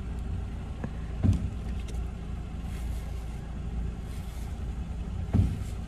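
Steady low hum of a car idling, with two dull thumps, one about a second in and one near the end.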